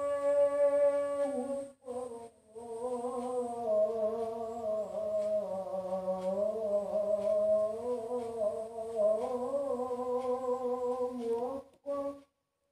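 A voice humming long held notes whose pitch wanders slowly up and down. It breaks off briefly about two seconds in, like a breath, and stops about a second before the end.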